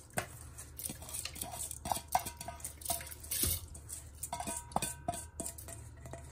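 Stainless steel bowl clinking and scraping against a steel pot as rice is pushed out of it by hand, in a string of irregular knocks, several of which leave a short metallic ring.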